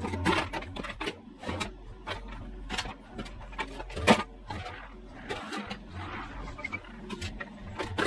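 Mini excavator's bucket and thumb prying up and breaking an old concrete slab: repeated knocks and cracks of concrete, the sharpest about four seconds in, over the machine's engine running.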